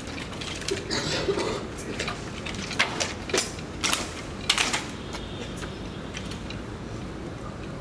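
Rifle drill with SLR rifles: a run of sharp, irregular clacks and slaps as hands strike and handle the rifles, about seven between one and five seconds in, over a steady low background rumble.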